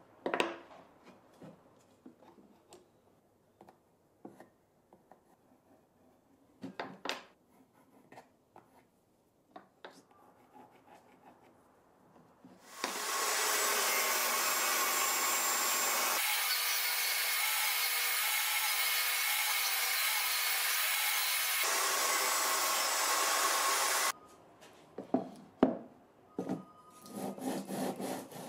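Small knocks and clicks of wooden pieces being handled. About halfway through, a table saw starts cutting grooves in wood, runs steadily and loudly for about eleven seconds, then cuts off abruptly. After it, wood slides and knocks on the saw table.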